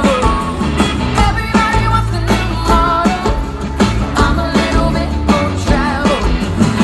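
Live country-rock band music through a large PA, with a steady drum beat, electric guitars and banjo, and a woman singing lead.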